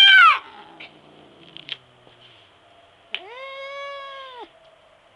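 Cat caterwauling in a territorial standoff with another cat: a loud, drawn-out yowl that dies away just after the start, then a second long, level howl of about a second and a half beginning about three seconds in.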